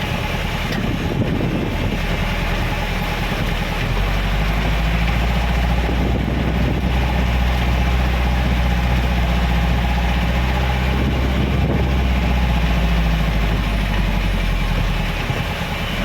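Vehicle engine running steadily under a constant hiss of road noise. The engine grows louder about four seconds in and eases off again near the end.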